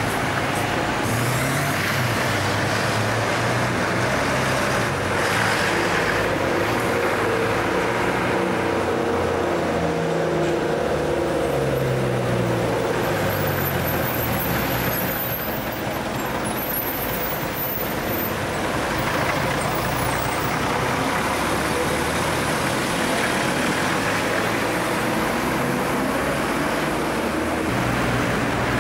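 Street traffic: the diesel engine of a Routemaster double-decker bus running as it drives close across the junction, its note rising and falling several times, over the steady noise of passing cars and taxis.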